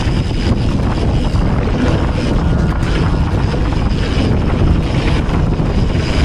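Wind buffeting the microphone of a bike-mounted action camera as a mountain bike rolls fast down a dirt trail, a steady low rush mixed with tyre rumble over the dirt.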